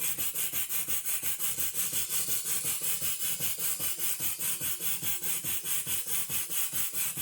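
Miniature sawmill's circular saw cutting wood, driven by a 1/2 hp Sipp engine with its belt on the higher-torque, lower-speed pulley. A steady hiss of the cut over an even pulse of about five beats a second.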